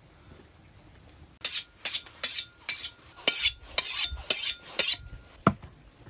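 Kitchen knife being sharpened against a steel cleaver blade: about nine quick, ringing steel-on-steel strokes, roughly two a second, then a single knock near the end.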